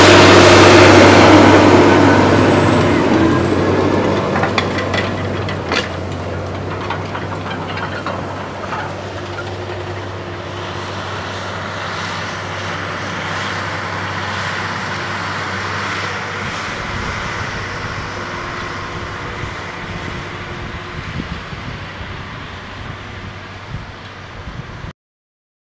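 John Deere 9510R four-wheel-drive tractor's diesel engine running under load as it pulls a 30-foot Landoll vertical tillage tool past. It is loudest at the start and fades steadily as the tractor moves away, then cuts off abruptly near the end.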